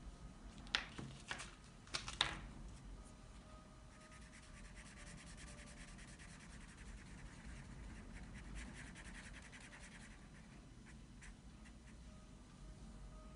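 A red coloured pencil scratching on paper as the reindeer's nose is coloured in with quick back-and-forth strokes, after a few sharp clicks from the pencil and paper being handled in the first couple of seconds.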